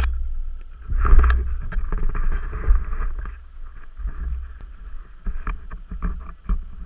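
A sharp knock at the start from the GoPro being handled, then a steady low wind rumble on the camera's microphone and the hiss of skis sliding over packed snow, with scattered small clicks.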